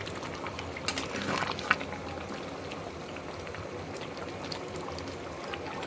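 Food bubbling in a cooking pot, a steady simmering hiss with scattered small pops and clicks.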